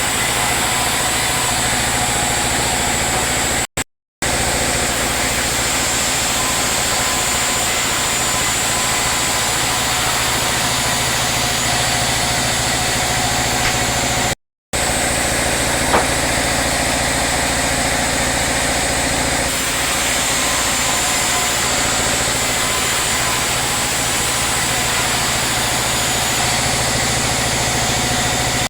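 Sawmill machinery running steadily, a constant hum with a thin high whine over it, broken by two brief gaps of silence and one sharp click partway through.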